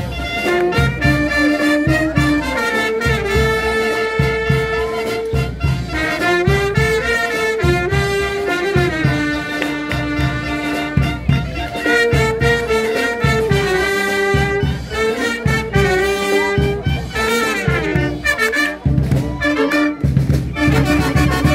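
Street brass band playing a lively tune: saxophones and trumpets carry the melody in held notes over a steady bass beat.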